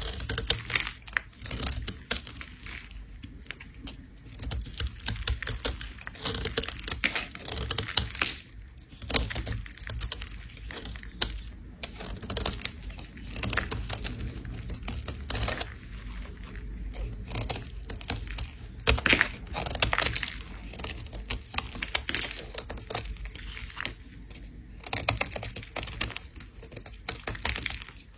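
A bar of soap being scraped: dense, crisp scratching and crackling in repeated strokes as the soap flakes away.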